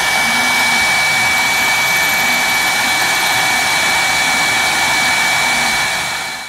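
Small CNC engraving machine's high-speed spindle running steadily with a high whine, a 0.5 mm two-flute end mill milling copper sheet. The sound fades out near the end.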